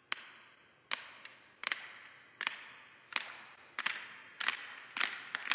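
Sharp hand claps from StadiumHands clapper gloves in a slow, steady beat, about one every three-quarters of a second, each with a short echo; the claps come quicker near the end.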